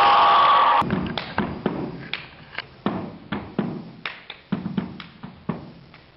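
Loud music cuts off about a second in, followed by a run of hand-made percussion: sharp claps, taps and thumps in a rhythm of about two hits a second.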